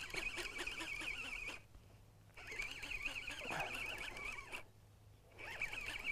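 Fishing reel being cranked: a wavering, squeaky whir in three runs of about two seconds each, with short pauses between.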